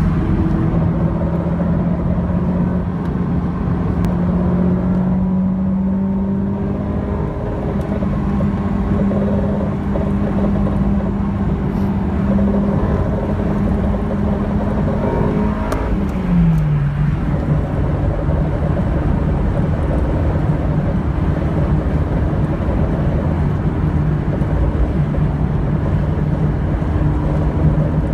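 Honda S2000 at about 70-80 mph under load, with a steady drone from the rear wheel over the road noise; the pitch creeps up slightly early on, then drops over about a second to a lower steady pitch about two-thirds of the way through. The noise persists even though the rear wheel bearing has already been replaced.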